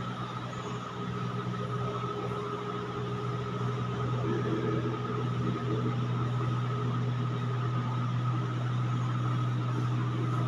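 Steady machine hum, low and even, with a thin high whine above it.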